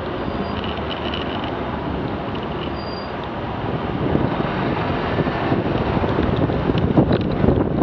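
Steady wind noise on the camera microphone over the low drone of a motorcycle engine moving slowly through traffic, growing louder about halfway through as the bike picks up speed past the coach.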